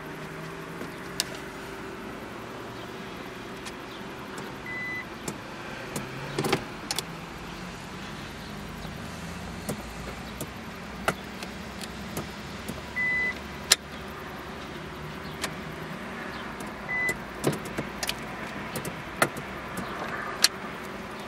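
2000 Mitsubishi Dion's 2.0-litre GDI engine idling, heard as a steady low hum from inside the cabin, with a number of sharp clicks and three short high beeps, the middle one longest.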